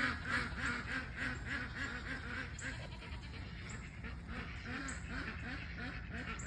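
Ducks quacking in a rapid, steady run of calls, about four a second, loudest at the start.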